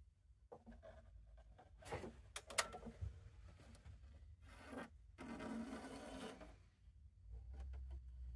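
Faint handling noise as thread is pulled through the guides of a Baby Lock Primo coverstitch machine: light rubbing and rustling, with a few sharp clicks about two seconds in and a longer rustle past the middle.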